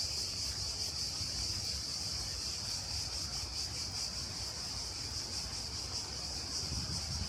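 Cicadas shrilling in a steady, continuous high-pitched chorus, with a low rumble underneath.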